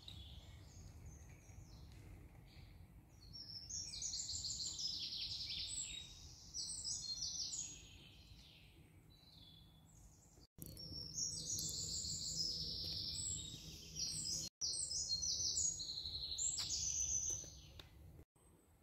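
Several songbirds singing at once, their songs overlapping in quick runs of repeated high notes, over a low rumble on the microphone. The sound cuts out for an instant three times.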